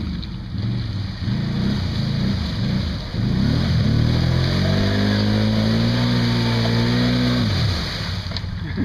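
Four-wheeler ATV engine working through a mud hole: low, uneven revs at first, then revving up about three seconds in and held high while the tires churn mud. The revs fall away near the end as the quad bogs down and gets stuck.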